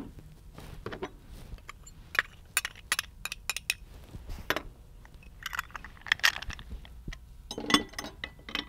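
A metal spoon clinking and tapping against small glass prep bowls: a quick run of sharp clinks in the middle, then a few more clinks and clatters near the end.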